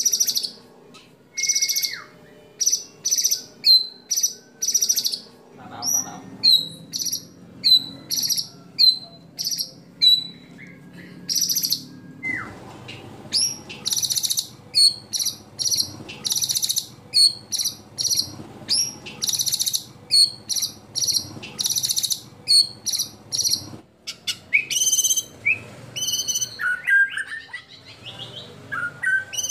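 White-rumped shama (murai batu) singing in rapid volleys of loud, sharp, high notes, many ending in a quick downward slur. Near the end the phrases drop lower and turn more varied.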